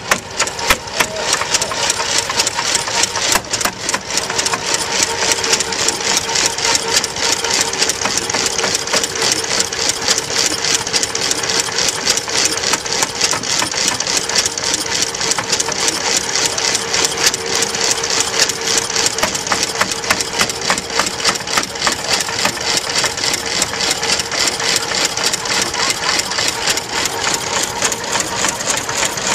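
Vintage stationary engine with twin spoked flywheels running steadily, giving a rapid, even mechanical clatter of ticks and knocks.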